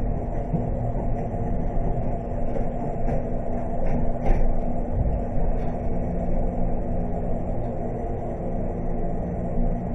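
Elevator car travelling upward: a steady low rumble and hum from the running elevator, with a few faint knocks about four to five seconds in.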